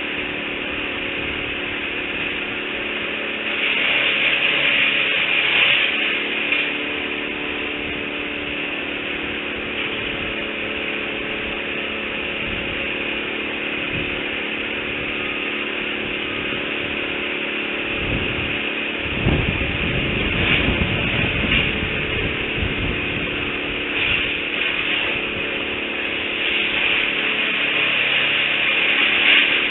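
Steady mechanical drone of a small motor with several held tones, rising and falling a little in loudness. A low rumble comes in about two-thirds of the way through.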